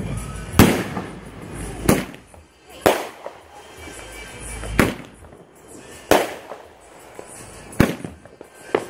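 Aerial fireworks shells bursting one after another: about seven sharp bangs at uneven gaps of one to two seconds, each trailing off in a short rumble.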